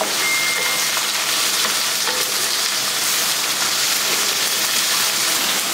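Chopped onions and green chillies sizzling steadily in hot oil in a steel kadai, stirred with a spatula.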